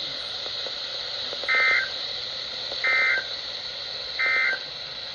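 Emergency Alert System end-of-message code from a NOAA Weather Radio broadcast: three short data bursts about a second and a half apart, over steady radio hiss. The code marks the end of the Required Weekly Test message.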